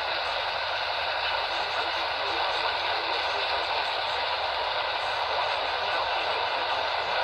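Steady radio static: an even hiss from a receiver pulling in a weak, distant station, cut off in the highs and lows like a narrow radio channel.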